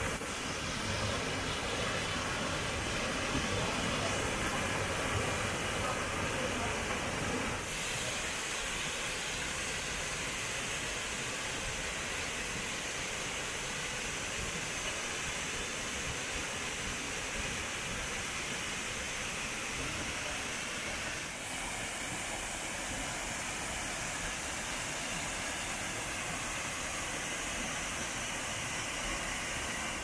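Waterfall cascading over rocks: a steady rush of falling water. The sound shifts about 8 seconds in, becoming thinner and hissier, and changes slightly again about 21 seconds in.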